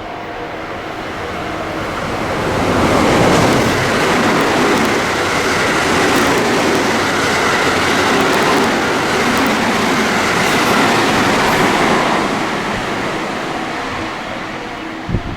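A train passing through a station at speed: the rush of wheels on rail swells over the first few seconds, holds loud for about nine seconds, then fades away.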